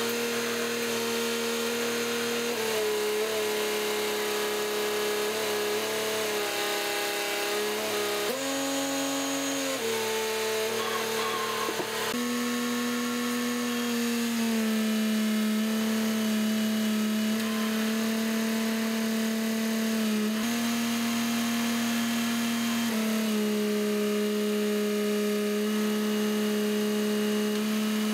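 Truck-mounted manipulator crane's engine-driven hydraulics running with a steady whining hum. The pitch shifts in steps as the crane controls are worked, rising briefly about a third of the way in.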